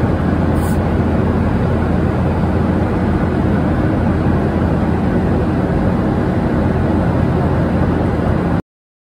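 Steady, loud vehicle rumble, even throughout, stopping abruptly near the end.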